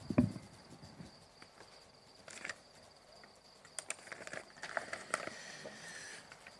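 Handling noise at a podium microphone: a sharp knock just after the start, then scattered light clicks and the rustle of paper sheets being handled.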